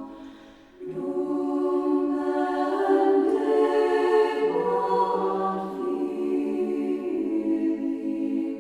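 Choir singing slow, held notes of a chant or hymn, with a short break between phrases about a second in.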